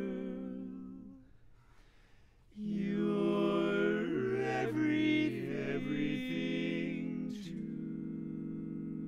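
Barbershop quartet singing a cappella in four-part close harmony. A held chord fades out, and after a brief pause the voices come back loud about two and a half seconds in, with moving parts, then settle into a softer sustained chord near the end.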